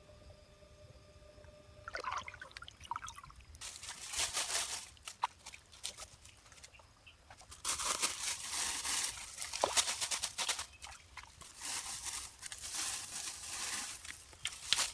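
Dry leaves and twigs rustling and crackling, with water splashing and trickling in a shallow stream, as leafy branches are pushed down over a bamboo fish trap. It comes in several bursts from about two seconds in.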